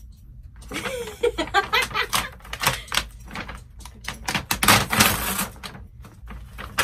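Paper gift bag rustling and crinkling as hands reach into it and tug at what is inside, a dense run of crackles and rustles.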